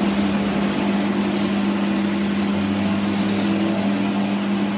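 Metal lathe running steadily with a strong hum, while a strip of emery cloth is held against the spinning gear input shaft to polish it, adding a steady hiss.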